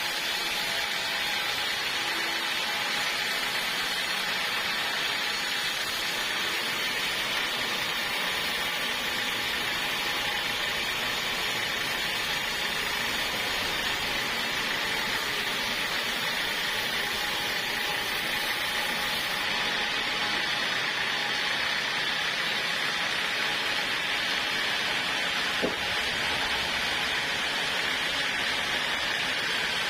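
Portable sawmill saw running steadily through a log, an even rushing mechanical noise. One short sharp click near the end.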